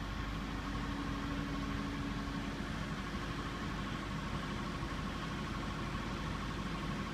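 Engine of heavy construction machinery running steadily, with a faint high whine held throughout.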